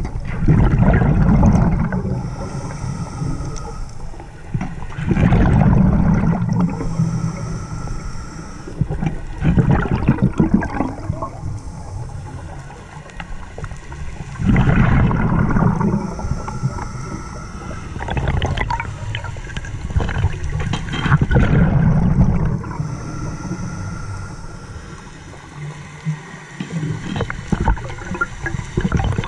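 Scuba regulator breathing underwater: a hissing inhale, then a gurgling rush of exhaled bubbles, repeating about every five seconds.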